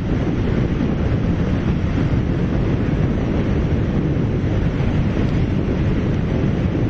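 Steady wind rushing over the microphone of a moving motorcycle, with the riding noise of the bike and its tyres blended underneath and no distinct engine note.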